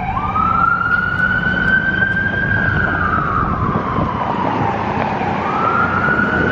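Emergency vehicle siren wailing: a tone that climbs, holds high, sinks slowly to a low point about five seconds in, then climbs again. It sounds over a low, steady rumble of street traffic.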